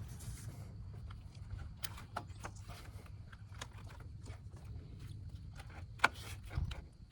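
Scattered clicks and light knocks of hands working a radiator's lower hose and fittings into place, with one sharper click about six seconds in, over a steady low hum.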